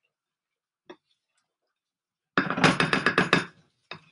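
A utensil knocking and clattering against a bowl as a salad is stirred: a faint click, then a quick run of about ten sharp knocks lasting just over a second, and one more knock near the end.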